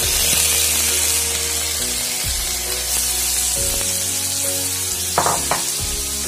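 Mixed vegetables (cauliflower, potato, carrot and peas) sizzling in hot oil with cumin and green chillies, the sizzle jumping up as they land in the pan. Two short knocks about five seconds in.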